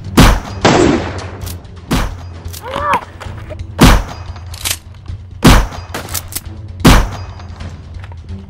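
A run of loud gunshots, about seven or eight sharp reports at uneven intervals over a steady low hum, with a brief wavering cry about three seconds in.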